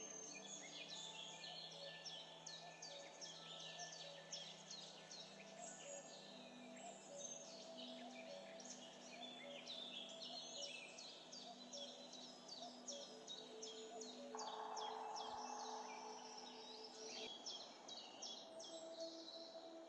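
Faint background music of soft held tones, with dense, rapid bird chirping over it.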